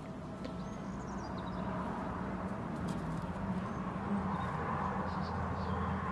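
Steady low rumble of outdoor background noise, with a few faint high chirps.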